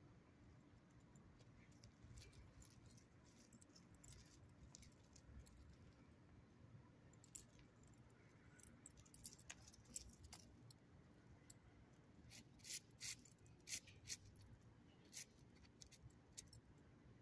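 Faint light jingling and clicking of a dog's collar tags and leash hardware as the dog moves, scattered at first and busier in the second half, with a few sharper clinks about three quarters of the way through, over a quiet low hum.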